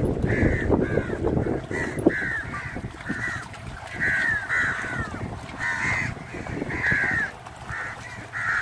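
Crows cawing over and over in short runs of harsh calls. During the first two seconds there is rustling and knocking underneath, with one sharp knock about two seconds in.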